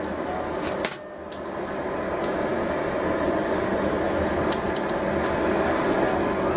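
Forge fire burning with a steady rushing noise and scattered sharp crackles. The noise dips briefly about a second in, then grows louder.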